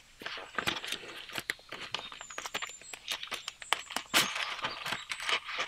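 Paper banknotes, a stack of $2 bills, rustling while being handled, with a soft clear PVC binder envelope crinkling as the cash goes back in. A steady run of small crackles and ticks, one a little louder about four seconds in.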